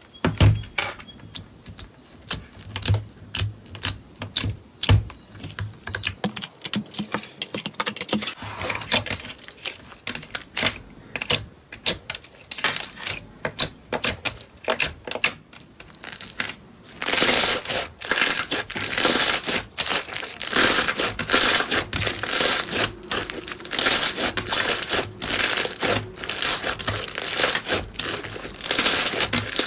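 Slime being squeezed and pressed by hand, making rapid sticky clicks and crackles, which turn louder and denser a little past halfway through.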